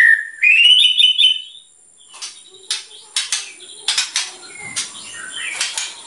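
White-rumped shama singing: a quick run of rising whistled notes, then after a short pause a string of sharp, clicking notes.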